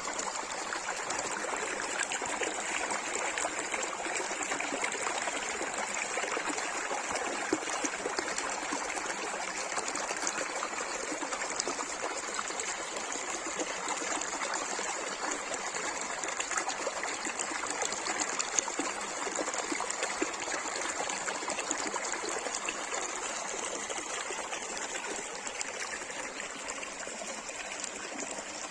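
Small stream of water trickling and babbling steadily over stones, a constant fine splashing with no breaks.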